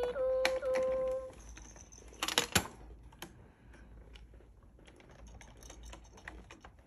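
Plastic buttons on a baby activity walker clicking and tapping as a baby presses them, a cluster of louder clacks about two and a half seconds in. Near the start the toy plays a short steady electronic tone, broken once.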